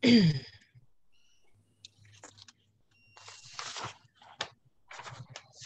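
A woman's breathy sigh, falling in pitch, followed by paper rustling and a few sharp clicks.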